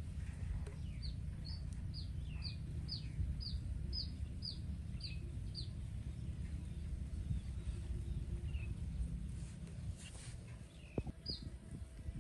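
A bird calling in the background: a run of about ten short, high, falling notes, roughly two a second, then a few scattered notes, over a steady low rumble. A few soft knocks near the end.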